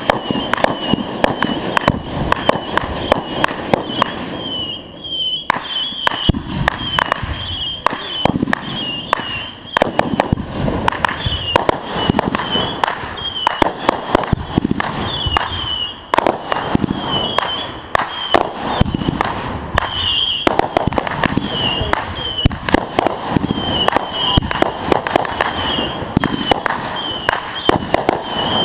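Fireworks going off in a dense, near-continuous run of bangs and crackles, with a short high chirp repeating about once a second.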